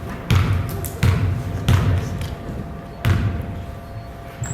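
A basketball dribbled on a gym floor: four bounces at an uneven pace, each a deep thud that echoes in the hall.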